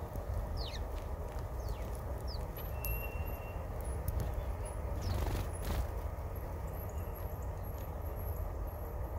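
Small birds giving a few short, high, falling chirps and one brief held note, over a steady low rumble; a cluster of sharp clicks or taps comes about five seconds in.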